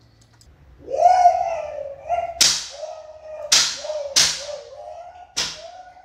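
Belt lashes cracking four times, about a second apart, over a continuous high-pitched wailing cry that starts about a second in.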